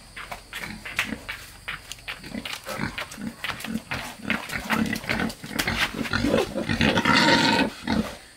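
Black pig confined in a wire cage, grunting in a steady run of short grunts, then letting out a loud squeal of about a second near the end as the cage is carried and set down.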